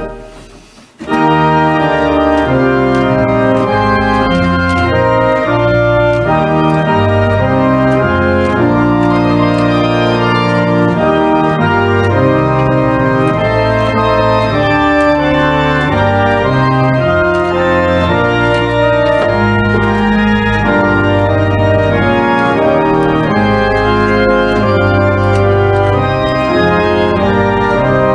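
Church pipe organ playing a hymn tune in full, sustained chords over deep bass notes. Right at the start a chord is released and its echo in the church dies away for about a second, then the organ comes back in loudly and plays on steadily.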